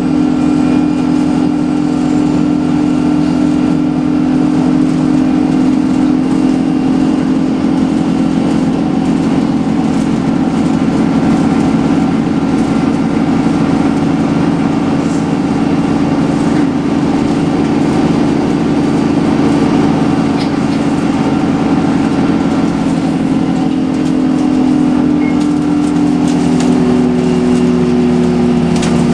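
Scania L94UB CNG city bus engine and drivetrain running steadily under way, with road noise, heard from inside the passenger cabin. Its steady hum shifts a little in pitch near the end.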